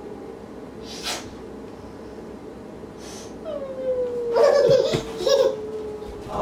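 Pretend crying: two short sniffs in the first three seconds, then a drawn-out whimper that slides down in pitch and breaks into louder sobs about four to five and a half seconds in.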